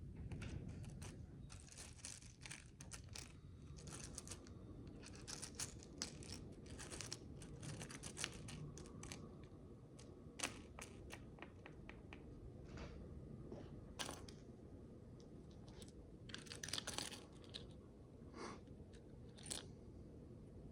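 Tiny plastic micro bricks clicking and rattling as they are handled and pressed together: irregular runs of small crackly clicks with a few sharper single snaps, over a low steady hum.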